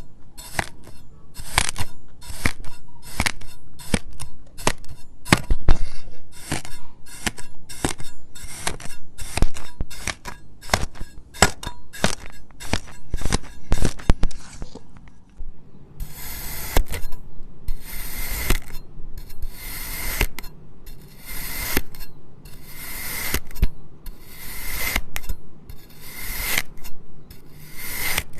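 Kinetic sand being cut, with quick crisp crunching cuts about two or three a second. About halfway through it changes to slower, longer scraping strokes, roughly one a second.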